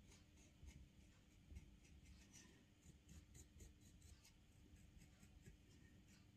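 Near silence with faint, irregular scratching of a clay modelling tool smoothing soft clay.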